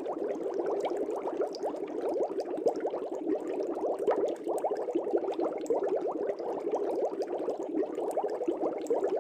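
Air bubbles streaming up through aquarium water: a dense, steady bubbling of many small bubbles.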